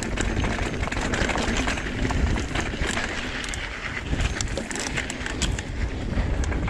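Trek Fuel EX 7 full-suspension mountain bike ridden along dirt singletrack: a steady rumble of wind on the microphone with tyres rolling over dirt and rocks, and many scattered clicks and rattles from the bike.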